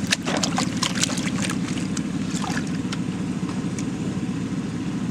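Water sloshing and splashing in a plastic gold pan as concentrate is swirled and washed out over a tub, busiest in the first two seconds. A steady engine drone runs underneath.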